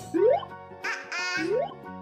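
Cheerful children's background music, overlaid with two quick rising swoops in pitch, one near the start and one past the middle, and a short bright squeaky effect around a second in.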